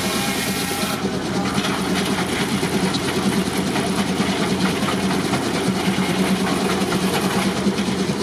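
Steam tractor running and driving a sawmill, a steady mechanical clatter with hiss. A whining tone stops about a second in.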